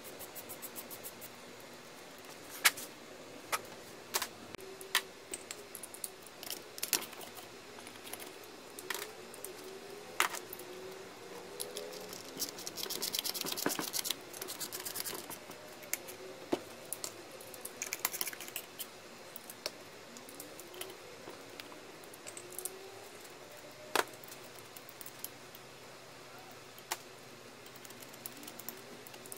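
Hand tools and metal parts clicking and knocking against an outboard powerhead as bolts are fitted, with sharp single knocks throughout. About halfway through comes a few seconds of rapid clicking from a socket ratchet, with a shorter run a few seconds later.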